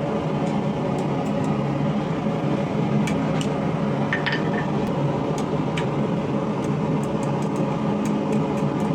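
A steady mechanical hum, like shop machinery running, with scattered light clicks and a short metallic clink about four seconds in.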